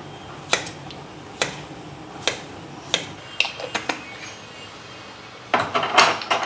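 Kitchen knife slicing a white root vegetable into rounds, each cut ending in a sharp click of the blade on a stainless steel tray, about one a second. Near the end comes a louder burst of clattering against steel.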